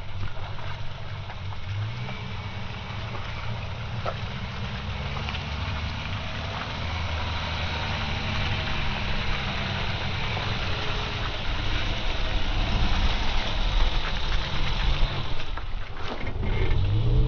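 A four-wheel-drive vehicle's engine running at low revs as it drives an off-road track, with a steady rush of travel noise over it. It grows louder through the second half and dips briefly near the end.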